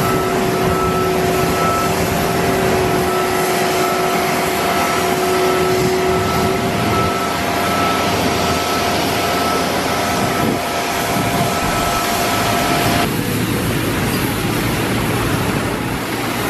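Business jet turbofan engines running at low power, a steady whine over a rush of jet noise. About thirteen seconds in, the whine stops abruptly and only a steady rushing noise remains.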